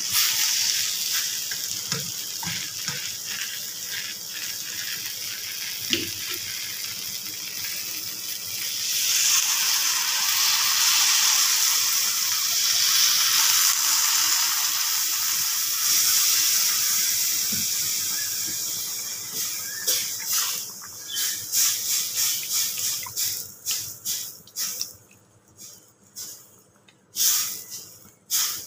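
Vegetables frying in a steel kadai with a steady sizzle and the scrape of a spatula; about nine seconds in, water is poured into the hot pan and a loud hiss rises, then fades over some ten seconds. Near the end the spatula stirs the wet gravy in separate scrapes and squelches.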